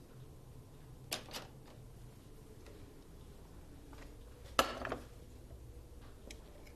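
Kitchen clatter of a frying pan and a wooden spatula: two light knocks about a second in, then a louder clatter, half a second long, of the pan being set down on the stovetop about four and a half seconds in.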